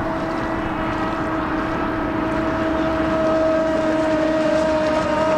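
CMB 45 (7.5 cc) two-stroke nitro engine of a radio-controlled offshore racing boat running at speed, a steady high-pitched buzz that grows a little louder in the second half.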